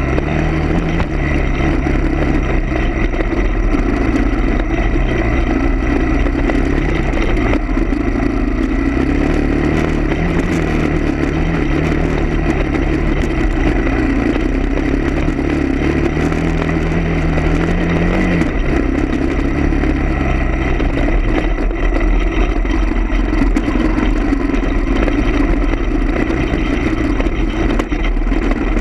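A motor vehicle's engine running, its low pitch stepping up and down several times.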